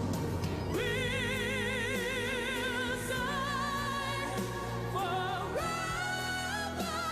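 Music: a solo singer holds long notes with a wide vibrato over a steady instrumental backing, moving between sustained notes.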